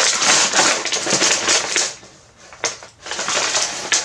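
Packaging being unwrapped by hand, crinkling and tearing, with a short pause a little after halfway and a single sharp snap before the crinkling resumes.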